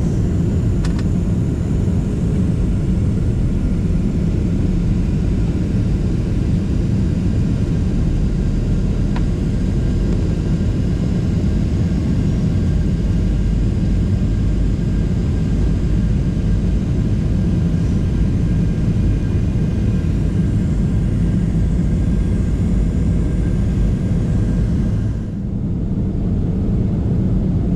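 Steady cabin noise inside a Boeing 737-700 airliner on approach: the rumble of its CFM56-7B engines and the airflow, strongest low down, with a brief dip in level about 25 seconds in.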